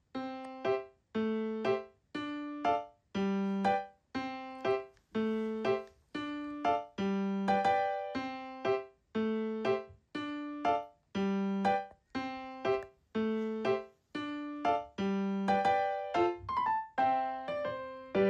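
Background piano music: a steady, evenly paced pattern of struck notes and chords, about two a second, each dying away before the next.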